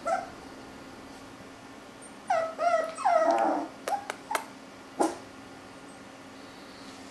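Maltese puppies yipping and whining in play: one short yip at the start, a run of high, wavering whines and yips a little past two seconds in, then a few quick short yips and one more about five seconds in.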